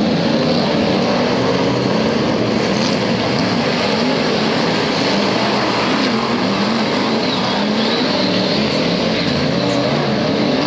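Several Stockcar F1 race car engines running at once, their pitches rising and falling out of step as the cars rev and lift off, over a steady wash of engine and track noise.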